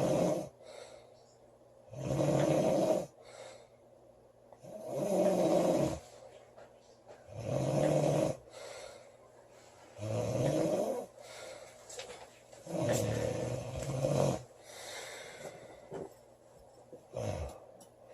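A woman snoring loudly, a long snore roughly every three seconds, five strong ones and then a shorter, weaker one near the end, with quiet breathing in between.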